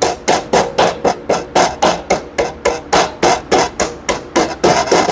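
A hand tool worked in quick, evenly spaced strokes, about three or four a second, on a motorcycle's rear axle assembly. The strokes merge into a denser scraping noise near the end.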